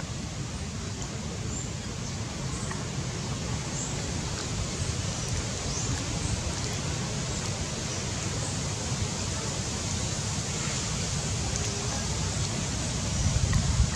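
Steady outdoor background hiss with a low, unsteady rumble of wind on the microphone, swelling briefly near the end.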